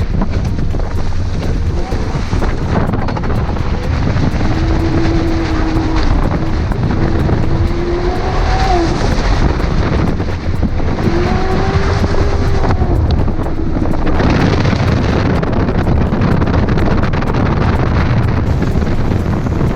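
Lexus LS400's 4.0-litre V8 engine driving off-road, the revs rising and falling several times over a heavy low rumble, with wind noise on the microphone.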